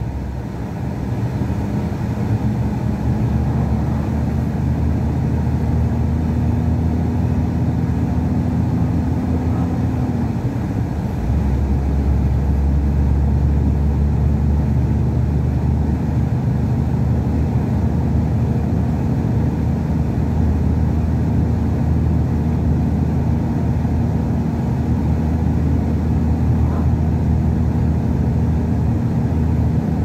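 Truck's diesel engine and tyre noise heard from inside the cab at highway speed: a steady low drone whose pitch creeps upward, drops about ten seconds in, then runs on a little louder.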